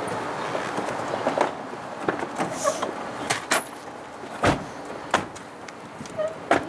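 SUV doors being opened and shut: a series of latch clicks and knocks, the loudest a heavy door thump about two-thirds of the way in.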